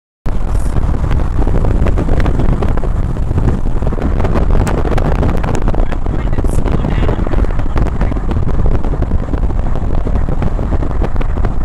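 Steady wind and road noise of a car driving at speed, recorded from the open side window, with wind buffeting the microphone.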